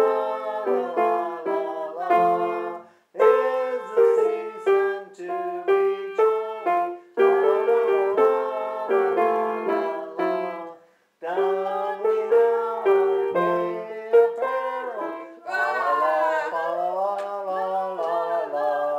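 Piano playing with a few people singing along, the music stopping briefly twice.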